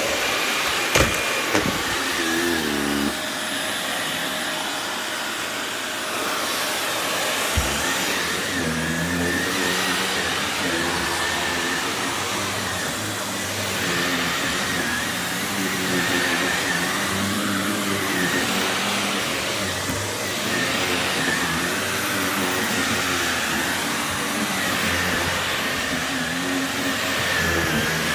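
Vacuum cleaner running steadily over a rug, with a constant high whine and a low hum that wavers in pitch every second or two. A few sharp knocks come about a second in and again near eight seconds.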